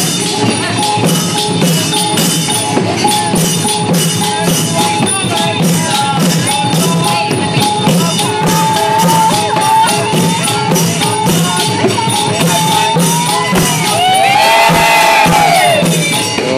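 Thai procession music with a quick, even beat of jingling percussion under a held melody line. Near the end a louder tone glides up and down over the beat.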